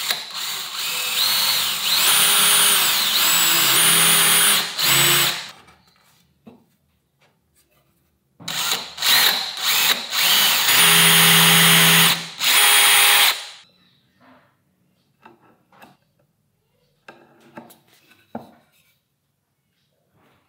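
DeWalt cordless drill boring screw pilot holes through a wooden crosspiece into the frame rail, in two runs of about five seconds each, its motor whine shifting in pitch as the trigger speed changes. Then a few light knocks of wood being handled.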